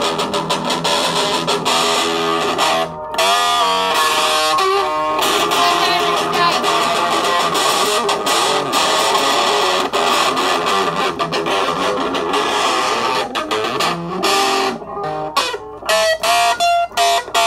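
Electric guitar playing a rock riff, loud and continuous, with quick repeated picked notes near the end.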